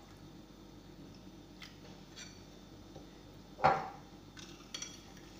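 A metal spoon knocks once against a glass bowl of date molasses a little past halfway, followed by a few light clicks as it stirs; otherwise only faint ticks over quiet room sound.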